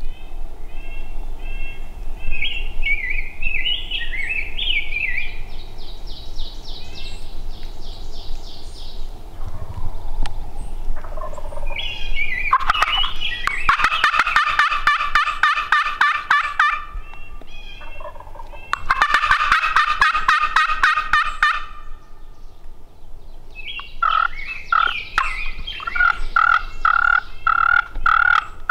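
Wild turkey gobbler gobbling: two long, loud, rapid rattling gobbles about halfway through, with softer call notes before them and a run of short, evenly spaced yelping notes near the end.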